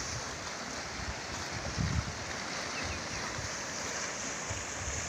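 Floodwater of a swollen river rushing steadily, with wind buffeting the microphone in gusts now and then.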